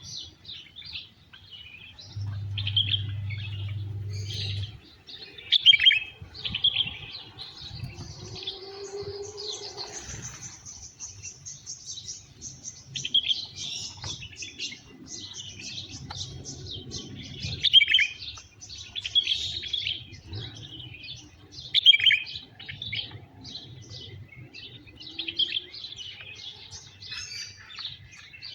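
Many small wild birds chirping and tweeting over one another, with a fast high trill about ten seconds in and a few loud, sharp chirps standing out.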